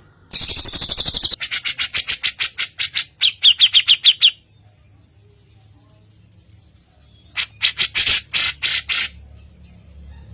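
Songbird calls from a cucak jenggot and cililin song recording: a long rapid chattering run of high notes, then after a short pause a second, shorter burst of rapid notes near the end.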